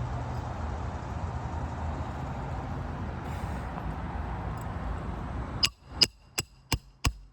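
Steady background noise with a low hum, cut off abruptly about five and a half seconds in, then five sharp, ringing hammer taps on a 3-tab asphalt shingle, about three a second, striking it to test for mat breaking and granule loss.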